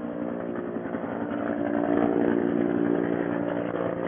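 A small engine running steadily, getting a little louder about midway.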